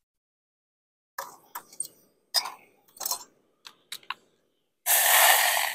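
Handling of a foil dehydrated-meal pouch: a run of short sharp crinkles and clicks, then a louder crinkling rustle lasting about a second near the end.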